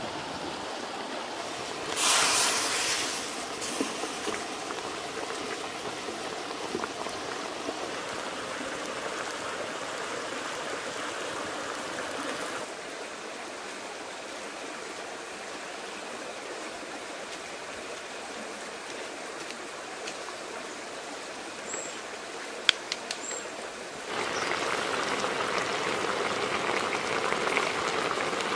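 Pig leg in sauce simmering in a wok over a wood fire: a steady bubbling, with a short loud hiss about two seconds in and a few sharp clicks a little after the middle. Near the end the bubbling gets louder as the liquid with the trotter and small corn cobs comes to a hard boil.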